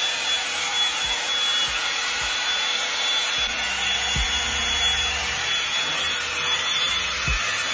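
Revlon One-Step hot-air brush dryer running steadily, a rush of blown air with a thin high whine from its motor, as it is worked through the hair.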